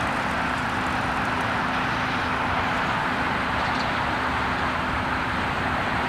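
Diesel engine of a crawler crane running steadily as the crane travels on its tracks, with an even drone and no impacts.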